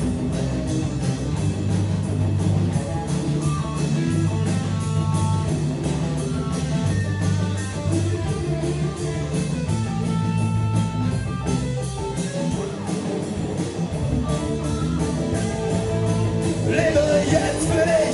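Rock band playing: distorted electric guitars over a drum kit, a steady loud instrumental passage. A voice comes in near the end.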